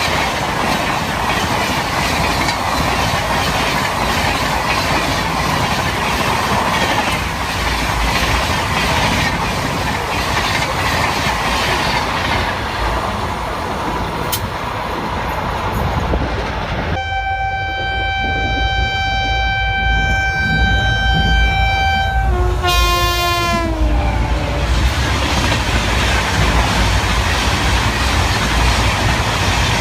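A train running past with a loud, steady rush of wheel and rail noise. Partway through, its horn sounds one long steady note for about five seconds, then a shorter note that falls in pitch. The rumble of the train returns after it.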